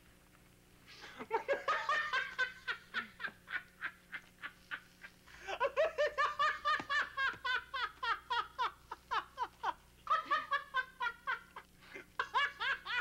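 A man's hearty belly laughter: long, rapid runs of 'ha-ha' in about four bouts, the first starting about a second in.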